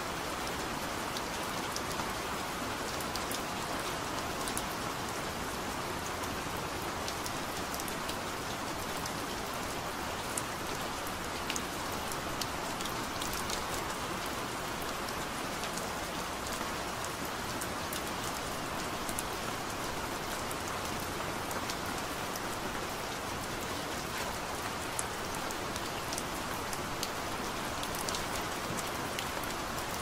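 Steady gentle rain, with scattered sharper drop ticks here and there.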